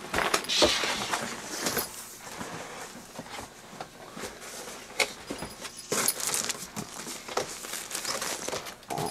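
Large cardboard box being opened and unpacked: the lid sliding off and cardboard and packing material rustling and scraping, with a few sharp knocks and clicks.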